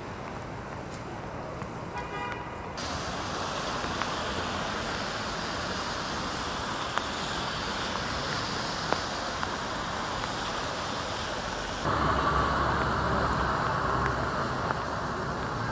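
Wet-street city traffic: cars passing with tyre hiss on the wet pavement and engines running. The sound changes abruptly twice, becoming louder, with a heavier low rumble, in the last few seconds.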